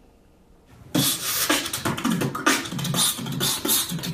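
A man beatboxing, sharp percussive mouth sounds in a quick steady rhythm, starting about a second in after a near-silent pause.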